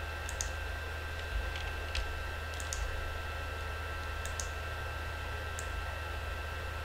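Scattered computer mouse clicks and a keyboard key press, about nine sharp clicks at uneven intervals. A steady low hum and faint high whine run underneath.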